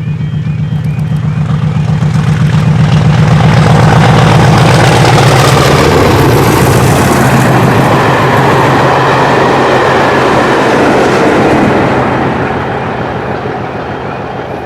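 Class 50 diesel locomotive 50008 growling past at the head of a 4TC coach set with a Class 33 on the rear. The engine note builds to its loudest about four seconds in, then gives way to the rush and clatter of wheels on rail as the coaches go by, fading away near the end.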